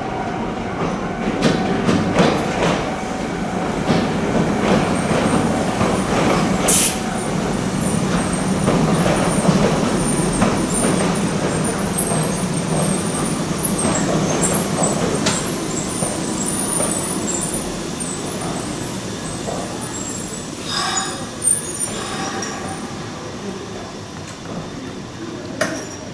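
A Kotoden Shido Line electric train pulls into the station and brakes to a stop. Its wheels knock over the rail joints and points, and a faint high squeal comes from the wheels and brakes on the curve. Short hisses of air near the end.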